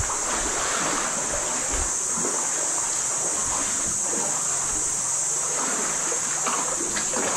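Small waves washing on a sandy shore, with a steady high-pitched insect chorus.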